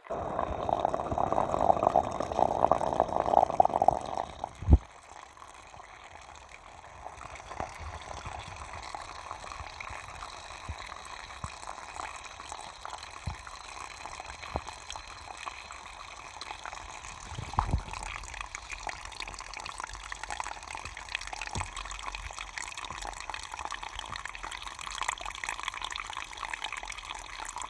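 Water running and trickling. It is louder and fuller for the first four seconds or so, then settles into a softer steady flow with a few brief knocks.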